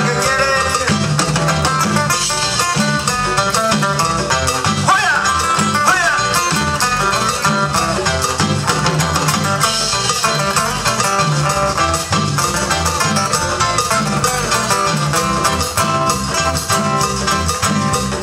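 Upbeat Latin dance music with guitar and a steady beat.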